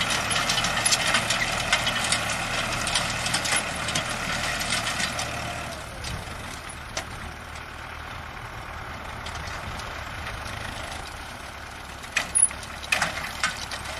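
Farm tractor's diesel engine running as it pulls a potato digger through the soil, with a fine rattling clatter; the sound gets quieter about six seconds in. A few sharp knocks near the end.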